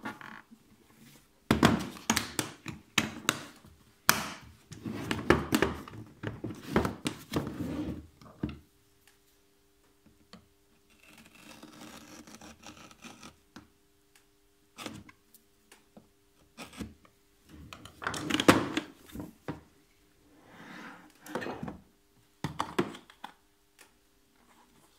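Hard plastic toolbox being handled and unpacked: repeated knocks, clicks and thunks of the plastic case and lid, with a stretch of scraping partway through.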